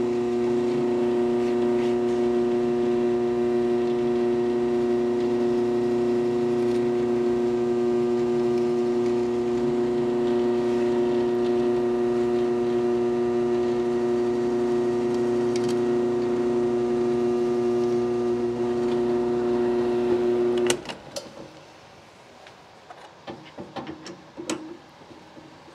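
Drill press motor running with a steady hum as the bit bores dowel holes in a wooden breadboard end. It switches off about 21 seconds in, followed by a few light knocks of the workpiece being handled.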